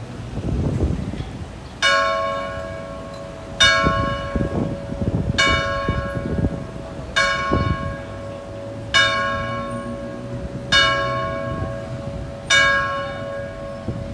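A church bell tolling seven slow, evenly spaced strikes, about one every 1.8 seconds, beginning about two seconds in. Each strike is the same single bell, ringing on and fading before the next.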